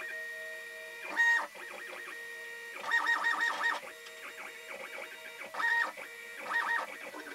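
WorkBee CNC machine's stepper motors whining as the router carriage is jogged across the bed in a series of short moves, with louder bursts about a second in, around three seconds in and twice near the end. The router spindle is not running.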